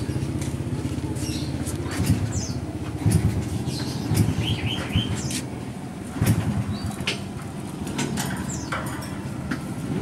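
Caged Fischer's lovebird moving about, with fluttering and scattered sharp clicks against the metal cage bars and a few short high chirps, three in quick succession about four seconds in. A steady low hum lies underneath.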